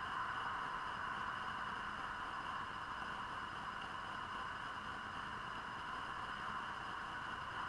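Receiver audio from a homebrew single-sideband receiver tuned between stations: a steady hiss, with a faint steady high tone above it.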